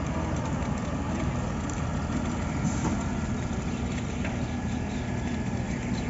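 Steady drone of heavy diesel machinery running: a trailer-mounted concrete pump fed by a transit mixer truck, pumping concrete, with a faint steady higher tone over the low rumble.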